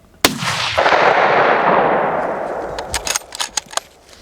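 A single hunting rifle shot, followed by a long rolling echo that dies away over about three seconds. A few sharp clicks come near the end.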